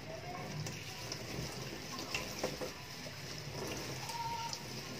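Tap water running into a stainless steel sink and splashing as a sponge is squeezed and rinsed under it, with small wet clicks and splashes.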